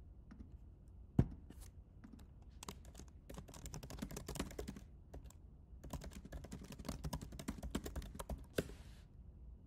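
Typing on a computer keyboard: one sharp knock about a second in, then two runs of fast keystrokes separated by a short pause.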